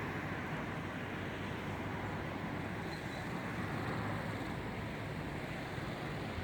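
Steady rumble and rushing noise of a small motorboat running on calm water.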